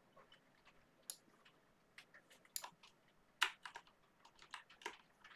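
Computer keyboard being typed on: irregular runs of key clicks, the loudest and busiest stretch about three and a half seconds in.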